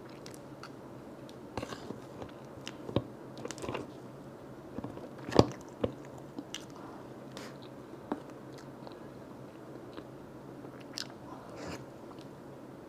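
Close-miked eating: chewing and mouth smacks with irregular sharp clicks, the loudest a little past halfway, over a faint steady hum.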